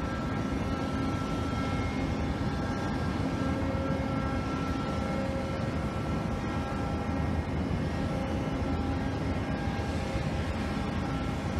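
Steady machinery drone from a moored bulk carrier and its pier-side unloading equipment: an even low rumble with several steady whining tones on top, unchanging throughout.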